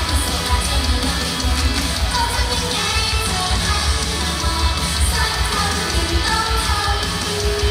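An idol group's pop song performed live: singing over a loud backing track with a strong, steady bass.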